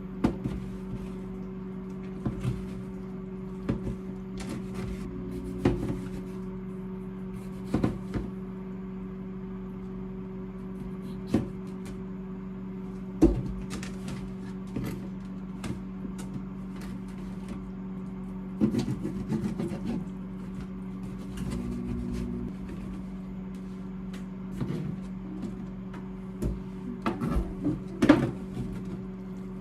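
A steady electrical hum from a kitchen appliance, with scattered clicks, knocks and short bursts of clatter from utensils and cookware being handled. The clatter is heaviest about two-thirds of the way through and again near the end.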